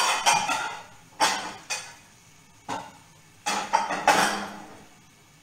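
Kitchen crockery and metal utensils clattering: about half a dozen sharp knocks and clinks, each with a brief ring, dying away about four and a half seconds in.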